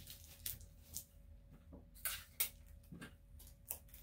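Hands pressing and smoothing adhesive tape onto a paper kite sail: irregular small crackles and rustles of paper and tape, the loudest a little after two seconds in.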